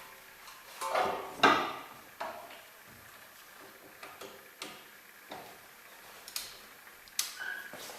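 Hand tools clinking and knocking against metal parts during a front wheel bearing job: scattered separate clicks and clanks, the loudest pair about a second and a half in.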